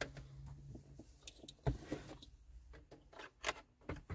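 Plastic dashboard trim, the instrument cluster surround, being handled and worked into place, giving a scatter of light, irregular clicks and knocks.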